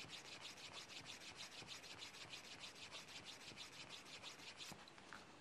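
Wooden edge burnisher rubbed quickly back and forth along a leather edge, faint even strokes about five or six a second, stopping shortly before the end with a small click.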